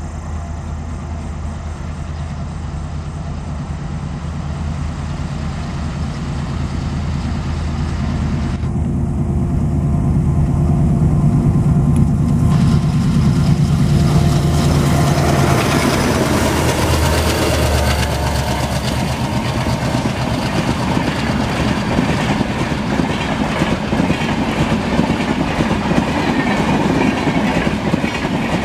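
Twin ALCO diesel locomotives approaching with a steady low engine drone that grows louder and peaks about halfway through as they pass. The Rajdhani coaches then roll by with a clickety-clack of wheels on the rails.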